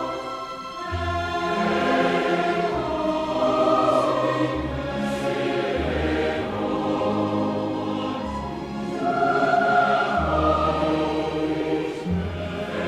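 Mixed choir singing sustained chords with a chamber orchestra, over a low bass line that moves to a new note every second or two.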